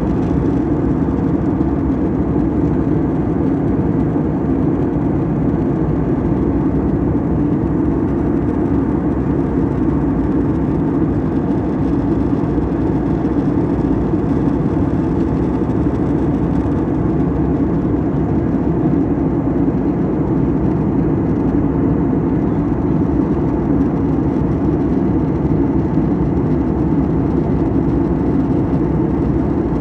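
Steady in-flight cabin drone of a jet airliner heard inside the passenger cabin: engine and airflow noise as a constant low hum that does not change.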